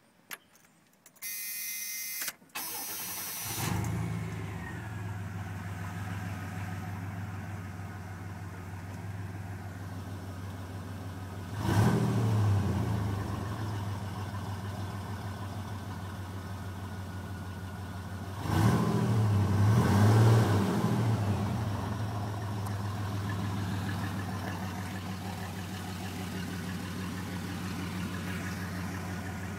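1993 GMC Sierra 1500 pickup's engine cranked by the starter for a couple of seconds, catching and settling into a steady idle. It is briefly revved twice, about twelve seconds in and again around nineteen to twenty-one seconds.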